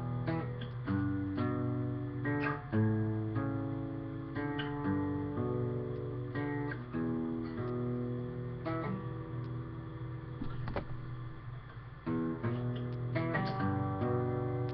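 Acoustic guitar with a capo, picked chords ringing in a steady pattern, with the chord changing every second or two.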